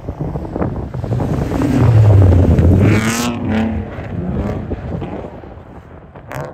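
Car engines revving hard as cars slide sideways on a snowy ice track. The engine note is loudest about two seconds in, then the pitch swings up and down with the throttle. Wind buffets the microphone.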